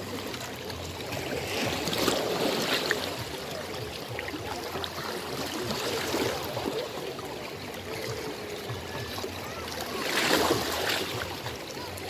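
Small sea waves lapping and washing over shoreline rocks, swelling louder a couple of times, about two seconds in and again near the end.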